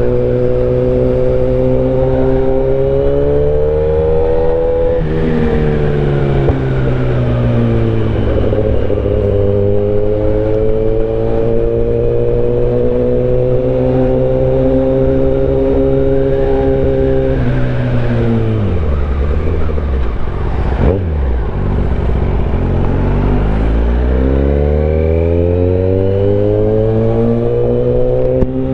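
Motorcycle engine heard from the rider's own bike in traffic. It pulls up in revs, drops with a gear change about five seconds in, and holds steady. Past the middle it falls to a low idle-like note, then rises again as it accelerates.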